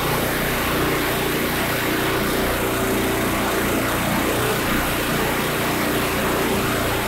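A Landa MHC portable hot-water pressure washer running steadily: its gas engine drones under the hiss of a high-pressure water jet spraying from the wand onto the floor.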